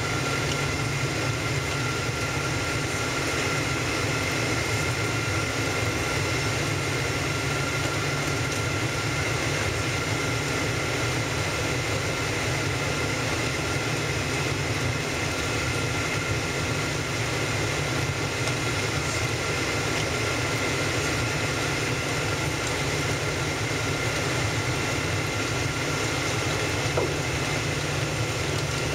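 Steady cabin noise inside a Boeing 777-200ER on approach to landing: an even rumble of engines and airflow, with two faint steady whining tones above it.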